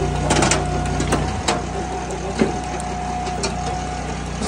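Brute Force 14-24 firewood processor's engine running steadily with a held whine over it. Sharp knocks and clacks of wood and steel sound over it, several in the first second and a louder one about two and a half seconds in.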